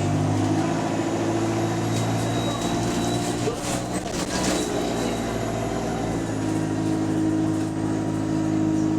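Diesel engine of a single-deck bus running loud and rough, heard from on board: its exhaust is leaking. The engine note steps up a little over six seconds in as it pulls harder.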